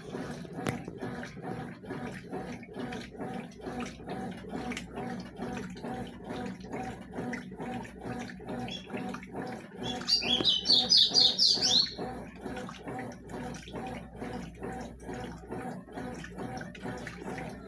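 Consul CWS 12 top-loading washing machine agitating during its rinse cycle, with an even, repeating churning of water and sheets. A bird chirps loudly in a quick series for about two seconds near the middle.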